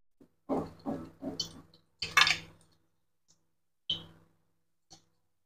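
Slotted metal spatula clinking and scraping against a cast-iron wok as fried tofu rolls are lifted out of the oil to drain: a series of short clatters, the loudest about two seconds in.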